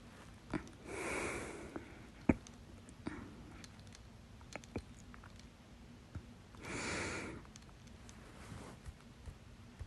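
Breathing of a person with hiccups: two long breaths, one about a second in and one about seven seconds in, with a few short sharp clicks in between, the loudest a little over two seconds in.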